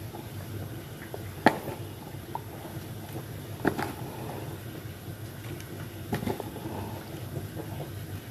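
Kitchen handling noises: three sharp knocks a couple of seconds apart over a steady low hum.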